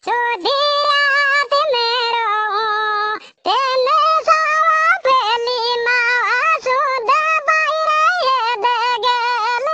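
A high, pitch-shifted cartoon voice singing a Rajasthani folk song (uchhata geet) in long, wavering held notes, with a short break about three seconds in.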